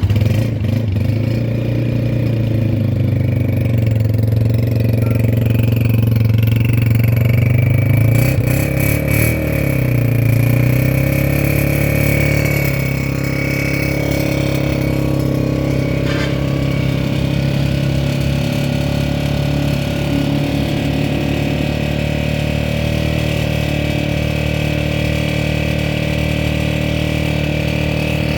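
Honda CG 125's single-cylinder four-stroke engine running. The pitch rises and falls briefly about a third of the way in, then the engine settles into a steady idle.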